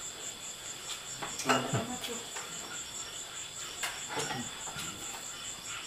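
Insects chirping steadily: a high, thin tone in a fast, even pulse, cricket-like. A few sharp clicks or knocks come through, around a second and a half in and again near four seconds.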